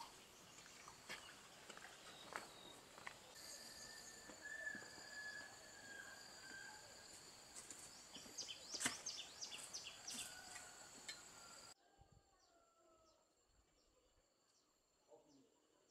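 Quiet forest ambience: insects trilling steadily at a high pitch, with a few bird chirps and small clicks. About three-quarters of the way through it cuts suddenly to a quieter scene where a single insect chirps in a steady pulse.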